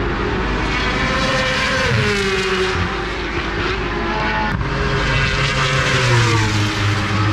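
Several racing superbikes passing on the circuit at high revs, their engine notes overlapping and sliding down and back up in pitch as they brake and accelerate. A brief click about four and a half seconds in.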